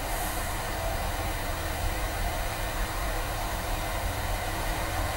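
Steady hiss with a low rumble and faint hum underneath: the background noise of an open broadcast audio line with no one speaking.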